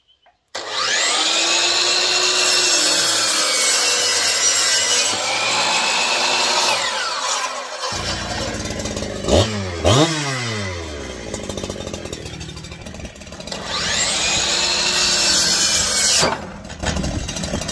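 An electric power tool cutting into gum timber: the motor spins up about half a second in and runs under load, winds down around the middle, then spins up again and cuts out suddenly near the end.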